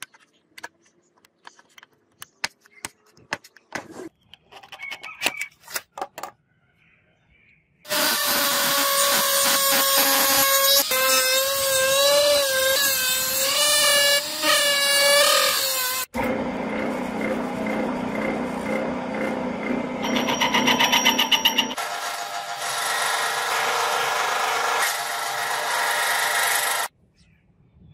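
Light clicks and taps of a brass disc being handled and measured. Then a handheld rotary tool with a small cut-off disc cuts into the brass, its loud whine wavering in pitch as the disc bites. From about halfway, a metal lathe runs, turning and cutting the brass disc, and stops shortly before the end.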